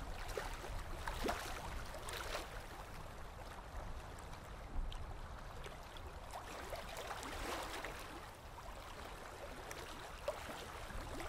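Gentle water lapping and trickling, a soft steady wash with small scattered ticks.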